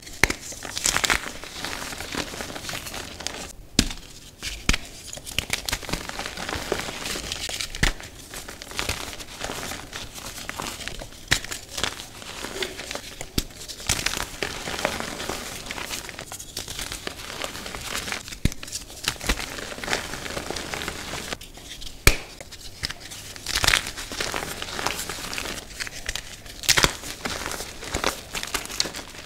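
Reformed gym chalk being crushed and crumbled in gloved hands: continuous dry crunching and crumbling with many sharp little snaps as the chunks break down into powder.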